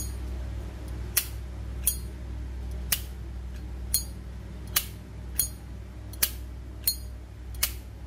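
Solid brass Zippo lighter's lid and hinge being flicked open and snapped shut over and over: about ten sharp metallic clicks, roughly one a second. It is a test of the lighter's signature lid click, which sounds fairly OK.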